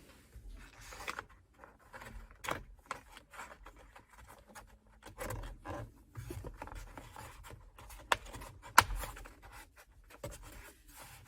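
Plastic steering-wheel trim cover being handled and fitted into place: light scraping and rubbing with a scatter of small clicks, the sharpest click a little under nine seconds in.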